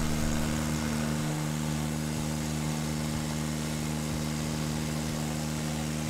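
Wood-Mizer LT20 band sawmill's engine running steadily at a constant pitch, with no change in speed.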